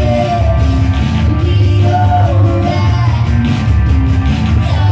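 Live pop-rock music from a duo on electric guitar and keyboard, with a voice singing held notes over a strong, steady bass.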